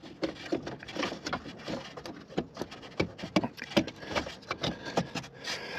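Irregular clicks, taps and scrapes of a plastic EVAP canister vent valve being slid back into its mounting hole in its nylon bracket under the car.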